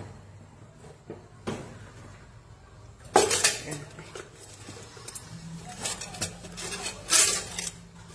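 A stainless steel folding steamer basket clattering and knocking in a pot as a whole raw chicken is pressed down onto it. There are a few separate knocks, loudest about three seconds in and again near the end.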